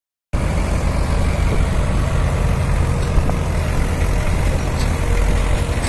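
Diesel tractor engines running steadily with a dense, low rumble.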